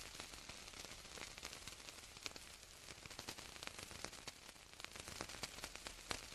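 Faint static: a low hiss with scattered small crackles and clicks.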